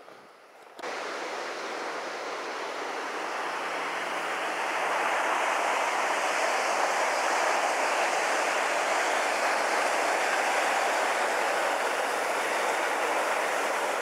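Waterfall gushing out of a cave mouth in the cliff, a loud steady rush of falling water that cuts in suddenly about a second in.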